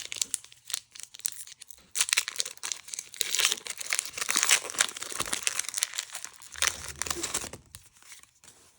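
Crinkling and rustling of plastic and foil trading-card packaging being handled, light at first and then heavy and continuous for several seconds before it dies away near the end.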